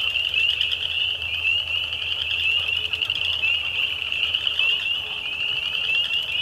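Dense chorus of spring peepers calling, many short rising peeps overlapping in a continuous high-pitched din.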